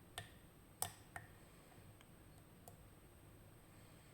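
A few small, sharp metallic clicks from a lock pick working the side pins of a RUKO Garant high-security cylinder during sidebar picking, the loudest just under a second in, then quiet apart from one faint tick.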